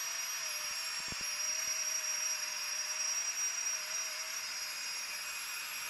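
Flextailgear Tiny Pump X, a small battery-powered electric air pump, running steadily as it inflates a Thermarest NeoAir XTherm sleeping mat: an even rush of air with a high motor whine and a faint, slightly wavering hum.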